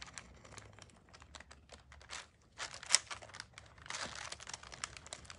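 Stylus scratching over paper as it traces an outline through transfer paper, with light crinkling of the paper sheets under the hand: a faint, irregular run of small scratches and ticks.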